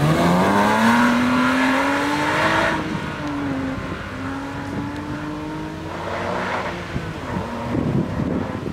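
Porsche Cayman S (987) flat-six engine accelerating hard from an autocross start, the revs climbing steadily, breaking off about three seconds in, then climbing again and growing fainter as the car pulls away.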